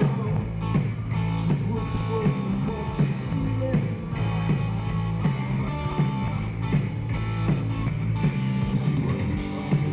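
Live blues-rock band playing: electric guitar over bass and a steady drum beat, heard from among the audience.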